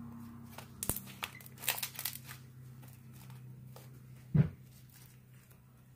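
Crinkly clicks and crackles from a plastic sheet and slime being handled, then one sharp knock about four and a half seconds in, over a low steady hum.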